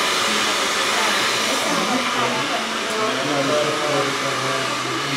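Handheld hair dryer blowing steadily, a continuous airy rush with a low hum underneath.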